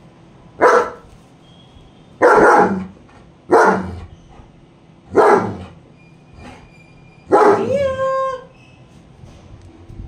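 German Shepherd barking five times, about a second and a half apart, the last bark drawn out into a whining tone.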